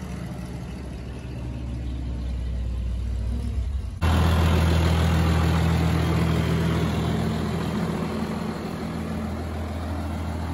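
New Holland 8160 tractor's diesel engine idling steadily, left running after being parked. The idle gets abruptly louder and closer about four seconds in.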